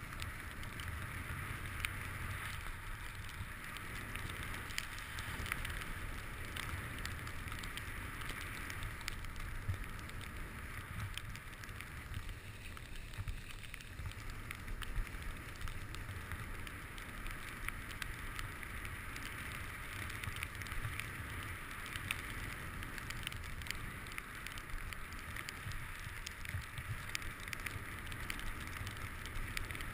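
Skis sliding and scraping over packed snow on a downhill run: a steady hiss with many small ticks, over a low rumble.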